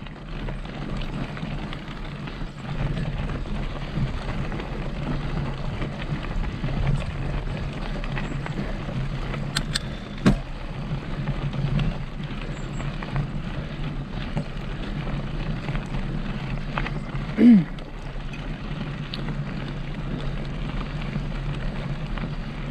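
Mountain bike being ridden: a steady rumble of tyres and wind with a few sharp clicks and rattles about ten seconds in. A short voice-like call comes near the end.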